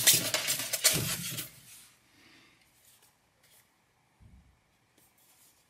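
A plastic handheld grip pulled out of a moulded polystyrene foam insert: loud foam rubbing and scraping for about the first two seconds, then only faint handling sounds.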